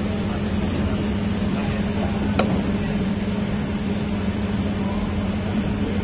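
Spring-coiling machine running with a steady mechanical hum while its tooling forms wire into coil springs, with one sharp click about two and a half seconds in.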